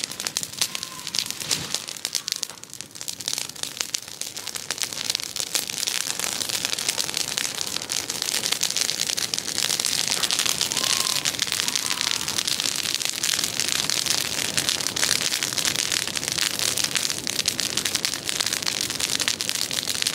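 Open bonfire of cleared brush and branches crackling and popping, growing louder and denser about eight seconds in as the flames flare up.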